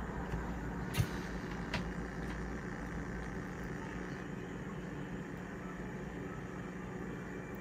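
A steady low hum over faint background hiss, with one light click about a second in.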